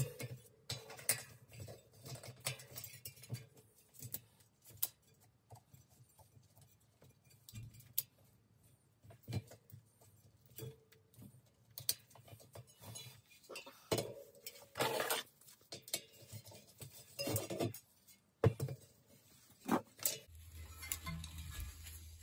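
Hand tools clinking and scraping on a corroded, seized bicycle wheel hub as its locknut and cone are worked loose: scattered metallic clicks and short scrapes. A low steady hum comes in near the end.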